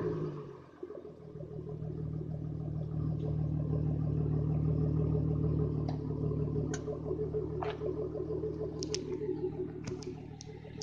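Ford Mustang 3.8-litre V6 with shorty headers and no muffler, dropping from a rev back to a steady idle within the first second. A few light clicks come near the end.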